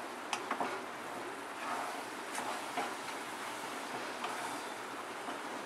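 Spatula stirring a kadhai of sticky, syrup-soaked motichoor boondi, a scraping sound over a steady soft hiss with a few light knocks against the pan. The boondi is drawing in the sugar syrup and starting to dry.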